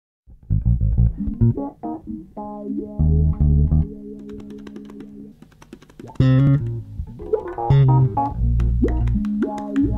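Instrumental opening theme music: a run of separate pitched notes over deep bass notes, starting about half a second in.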